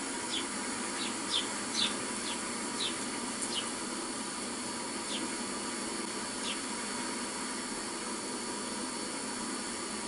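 Sparrows chirping: about ten short, separate chirps in the first seven seconds, then none, over a steady hiss.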